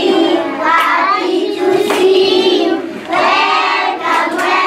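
A class of young children singing together.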